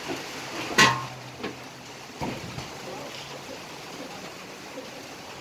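A sharp clink that rings briefly about a second in, followed by a few softer knocks, over a steady background hiss.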